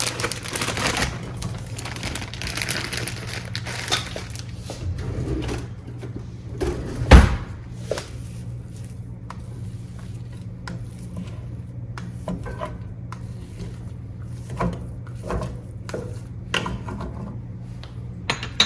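Kitchen handling sounds: scattered clicks and knocks of utensils and containers, with one loud knock about seven seconds in, over a steady low hum.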